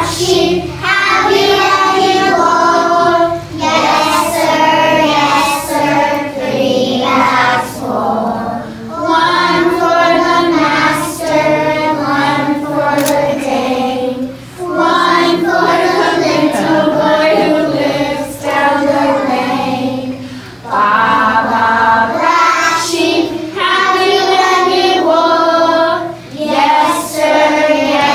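A group of young children singing a nursery rhyme together in unison, in sung phrases with short pauses for breath between lines.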